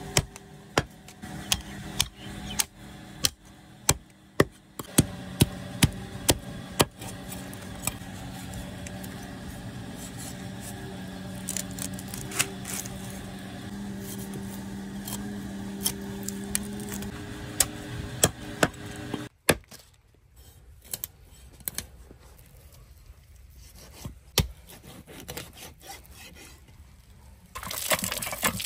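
A large knife cutting through the fins and flesh of a big singhara catfish on a wooden chopping stump, with repeated sharp knocks of the blade against the wood and scraping. Near the end, water pours and splashes over the cut fish pieces.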